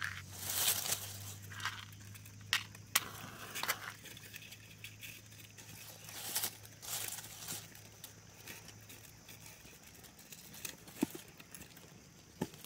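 Dry leaves and twigs rustling and crinkling as they are handled and arranged into a kindling pile, with a few sharp snaps and clicks scattered through.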